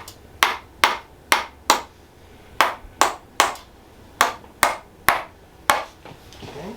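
Tok sen wooden mallet striking a wooden wedge in rhythmic tapping massage: about a dozen sharp wooden knocks, two to three a second, in short runs with brief pauses.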